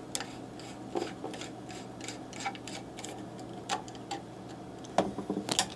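Scattered light clicks and taps from hands handling the print head assembly of a Datamax O'Neil label printer as it is pressed down onto the roller and closed, with a louder group of clicks near the end. A faint steady hum runs underneath.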